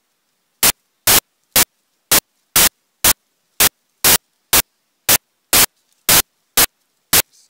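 Loud, short bursts of static hiss, about two a second, with dead silence between them: a digital recording glitch, not a sound in the woods.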